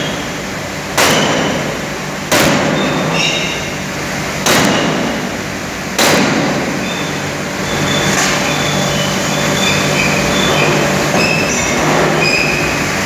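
Drop-forging hammer striking hot steel in its die: four heavy blows one to two seconds apart, then fainter knocks, over a steady machine hum and intermittent high metallic squeals.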